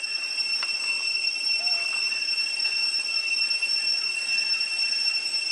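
Cicadas droning in one steady, high-pitched whine, with a couple of faint clicks.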